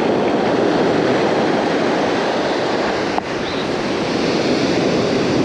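Steady rush of surf breaking and washing up the beach, mixed with wind on the microphone, with a brief dip a little past three seconds in.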